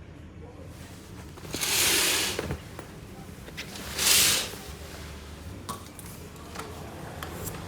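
Curtains being drawn open: two quick swishes of fabric sliding along a rail, about two seconds apart, followed by a few light clicks, over a low steady hum.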